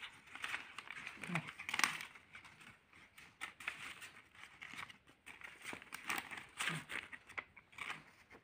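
Paper banknotes rustling and crinkling irregularly as a baby's hands grab and shuffle them.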